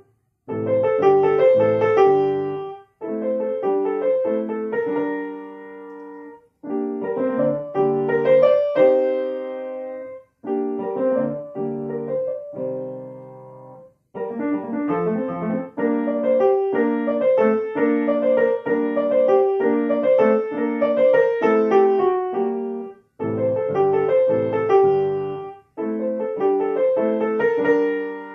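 Solo piano playing a simple melody over chords, in short phrases separated by several brief silences.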